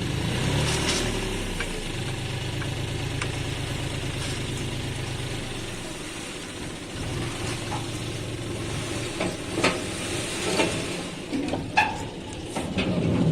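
John Deere 5038D's three-cylinder diesel engine running steadily while its hydraulic tipping trailer is raised to dump a load of murram soil. A rushing hiss of loose soil and gravel sliding out runs under the engine, with a few sharp knocks and clanks in the last few seconds.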